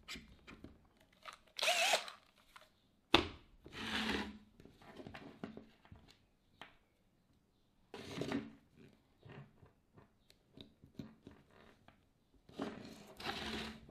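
Cordless drill whirring in a few short bursts, its pitch rising and falling in the first, with clicks and rustles of handling in between.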